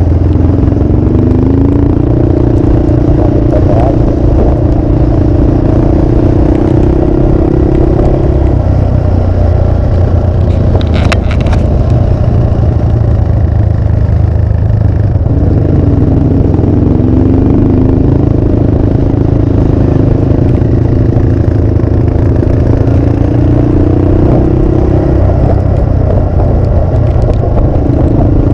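Motorcycle engine running under way at a gentle pace. Its note rises and then holds twice, about a second in and again past the midpoint, over a constant loud low rush of riding wind on the microphone.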